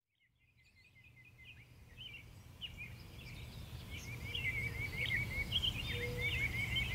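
Birds chirping and trilling over a low, steady outdoor rumble, fading in from silence and growing louder.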